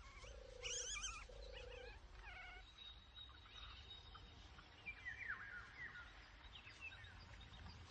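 Quiet woodland ambience of wild birds calling. A low repeated call sounds twice near the start, among chirps, a thin high note held for a couple of seconds, and falling whistled notes about five seconds in.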